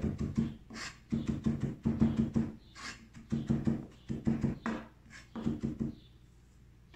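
Knife chopping fresh herbs on a cutting board: several quick runs of rapid taps with short pauses between them, stopping about six seconds in.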